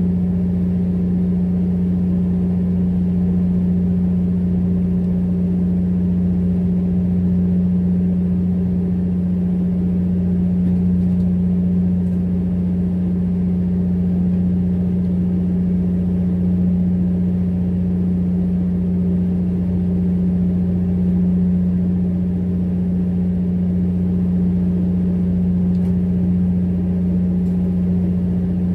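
Fishing boat's engine running steadily on deck, a constant low hum that does not change.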